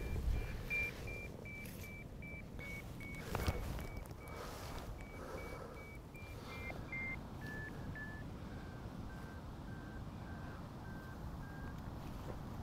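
Electronic beeping from a terrier locator receiver homing on the collar transmitter of a terrier working underground in a fox den: short single-tone beeps about three a second, which from about six seconds in step down in pitch twice and slow to about two a second. A single sharp knock sounds about three seconds in, over a steady low wind rumble.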